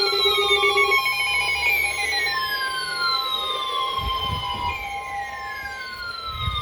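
Several NOAA weather radio receivers sounding their alert alarms at once. One gives a falling siren-like tone that repeats about every three seconds, others give pulsing beeps that stop within the first few seconds, and a steady tone near 1 kHz, the NOAA warning alarm tone, sets in about two seconds in. A few low thumps come near the middle and the end.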